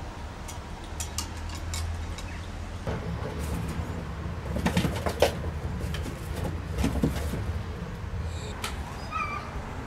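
Kittens playing in and around a cardboard box on a tiled floor: light clicks and scuffs, louder scrapes and knocks of cardboard about halfway through, and a few short high kitten mews near the end.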